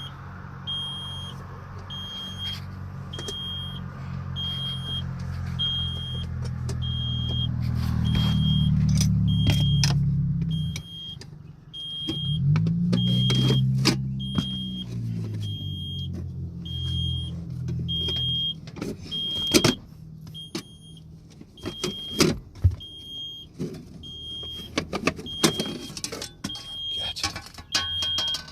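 Cat C15 inline-six diesel of a Kenworth T800 idling, revved up and back down twice a little past a third of the way in, while a high warning beep repeats about once a second. Clicks and knocks of handling come in the second half.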